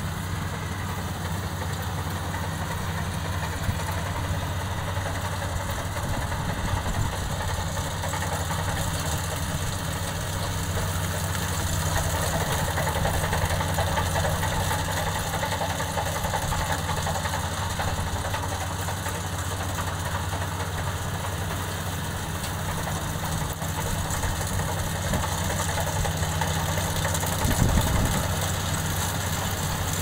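Rice combine harvester running steadily as it harvests, a continuous engine drone mixed with the noise of its cutting and threshing machinery, growing a little louder near the end.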